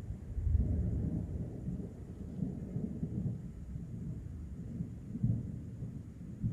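Low rolling thunder from a dry lightning storm, rumbling with no rain, swelling about half a second in and again near the end.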